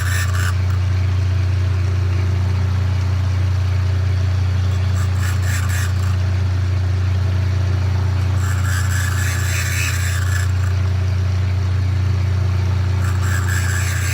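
A 1920s Kwik Way valve grinder running, its electric motor giving a steady low hum. The grinding wheel rasps against the valve face, taking the pitting out; the rasp drops away shortly after the start and comes back about two-thirds of the way through.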